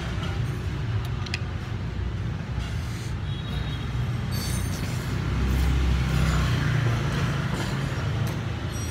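Road traffic rumbling steadily, with one vehicle passing louder about five to seven seconds in.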